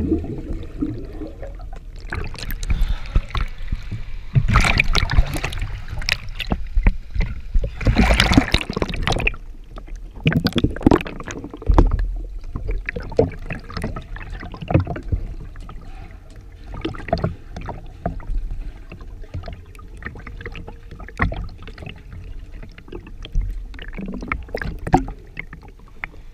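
Muffled water sloshing and gurgling heard through a camera held underwater in a swimming pool, with irregular knocks and clicks and a few louder surges of water noise in the first ten seconds.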